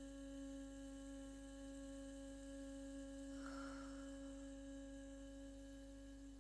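Faint, steady drone: one held low note with a ladder of overtones that doesn't waver or die away, the ambient background music of the relaxation section. A faint short shimmer rises over it about halfway through.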